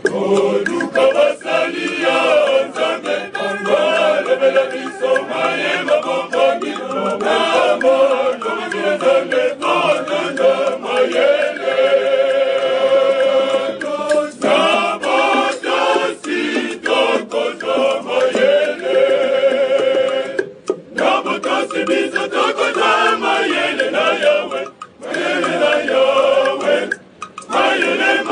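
Male choir singing together, with a few short pauses between phrases in the last third.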